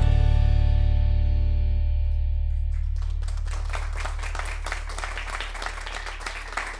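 The song's final chord on guitar and plucked strings rings out and slowly fades. About three seconds in, audience applause starts.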